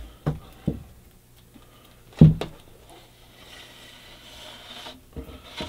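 Handling a clear plastic bat shipping tube with a wooden baseball bat inside: a few light knocks, a single louder thump about two seconds in, then faint rubbing as the bat slides along the inside of the tube, and small clicks near the end.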